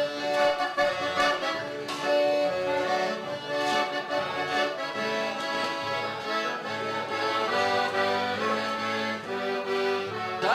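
Accordion playing traditional gaúcho dance music: a changing melody over sustained chords.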